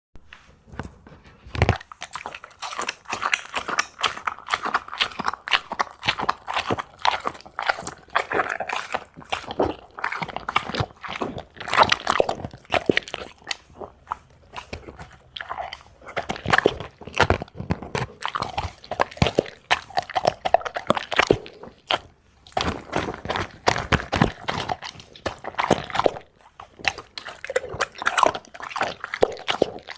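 A dog eating, chewing and crunching its food in quick, irregular bites.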